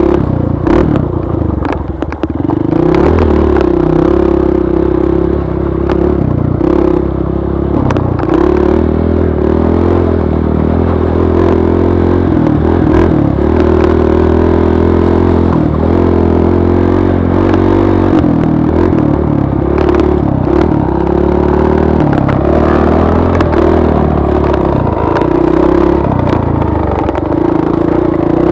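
Trail bike engine running under changing throttle as it is ridden over rough ground, its pitch rising and falling, with sharp clattering knocks in the first few seconds.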